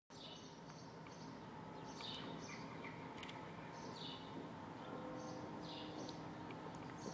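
Birds chirping in short, repeated calls, many dropping in pitch, over a faint steady low hum of street ambience.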